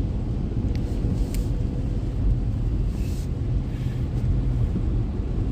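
Steady low rumble of a car's engine and tyres heard inside the cabin while driving on a rain-wet highway.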